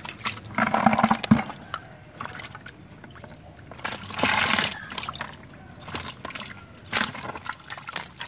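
Water sloshing and pouring out of a plastic bucket as it is tipped over, with freshly caught fish in it, in two main gushes about half a second in and about four seconds in. A few short sharp knocks come near the end.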